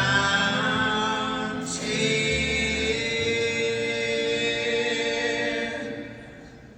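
Several male voices singing in close harmony, almost unaccompanied, holding a long final chord that fades away near the end.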